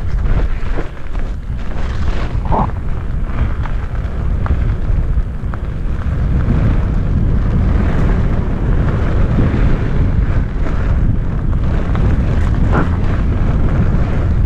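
Heavy wind buffeting on a helmet-mounted camera microphone during a fast mountainboard descent, over the rumble of the board's wheels rolling on a gravel trail, with a couple of brief scrapes.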